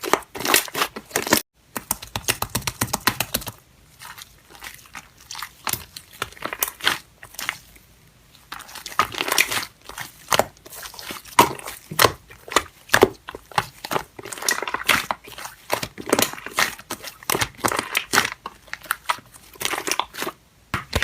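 Slime being squeezed and worked by hand: a dense run of sticky clicks and crackles, softer for a few seconds near the start before picking up again.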